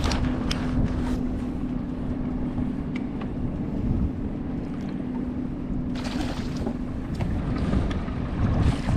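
A boat motor running steadily: a low rumble with a steady hum, with wind buffeting the microphone.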